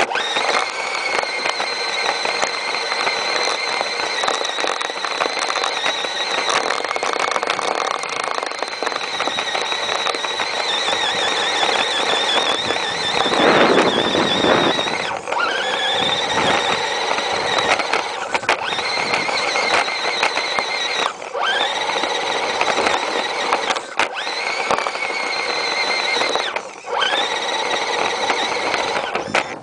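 High whine of the Axial AX10 RC crawler's electric motor and gears, heard from on board as it plows snow. It cuts out briefly several times and rises in pitch each time the throttle picks up again. There is a louder rush of noise about 13 seconds in.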